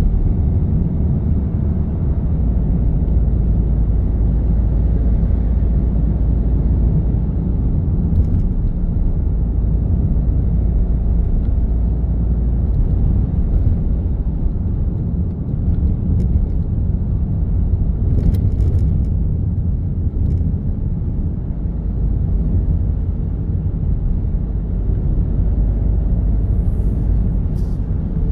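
Steady low rumble of a vehicle driving in road traffic, with engine and tyre noise. A few faint, brief clicks are scattered through it.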